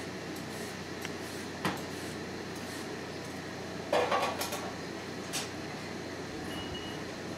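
Stainless steel mixing bowl clinking and knocking against the steel counter and tray as coated pork pieces are handled, with a single clink about a second and a half in and a short clatter about four seconds in, over a steady room hum.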